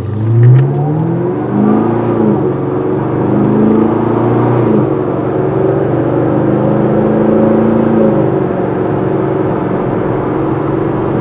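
Chevrolet Camaro SS V8 running through an aftermarket sport exhaust with the mid and rear mufflers removed and only the catalytic converter kept. It revs up sharply at the start, is blipped several times over the next few seconds, then runs at a fairly steady speed.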